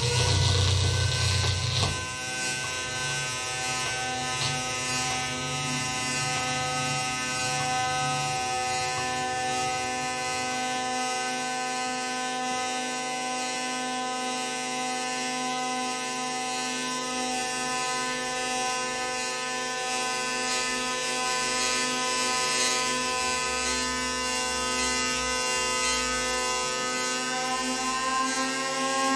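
Hurdy-gurdy, prepared and amplified, sounding a steady drone of many held pitches at once. A loud low rumble under it drops away about two seconds in, and near the end some of the pitches slide upward.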